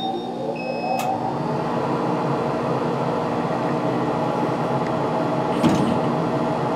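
Laser cutter just switched on: its fans and motors spin up over the first second, then run with a steady hum. A few short high beeps and a click come in the first second as the controller starts up.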